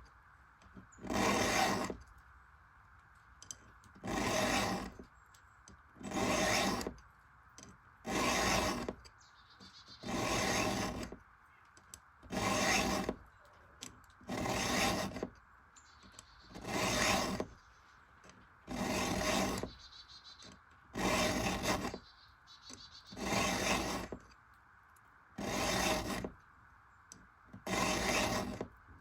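Round chainsaw file rasping across the cutters of a ripping chain during freehand sharpening. The strokes are steady and even, about one every two seconds, each lasting under a second.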